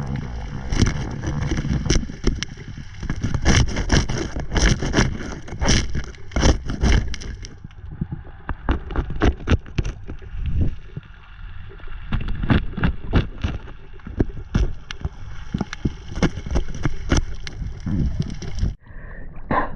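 Water sloshing and gurgling close around the camera, with many sharp knocks and clicks and a heavy low rumble; the sound breaks off briefly near the end.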